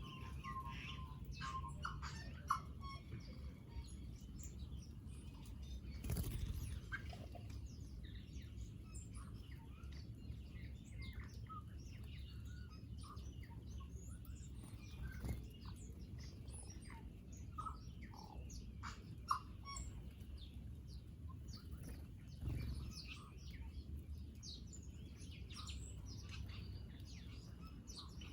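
Small birds feeding, many short chirps and tweets overlapping over a steady low background rumble, with a few brief knocks along the way.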